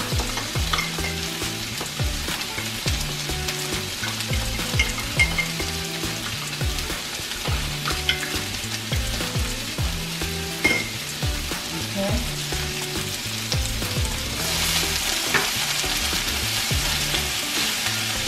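Sliced bell peppers and onions sizzling steadily in hot oil in a frying pan, with scattered light clicks of a whisk against a glass measuring cup as the soy sauce and cornstarch mixture is stirred. The sizzling grows louder about fourteen seconds in as the vegetables are stirred.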